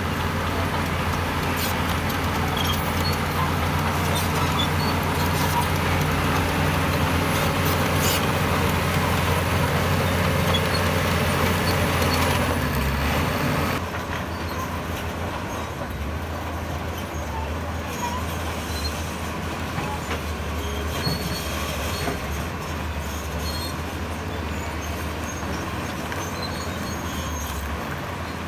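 Heavy diesel construction machinery at work: a steady low engine drone with a loud rushing noise over it. The noise cuts off abruptly about 14 seconds in, leaving the engine running more quietly.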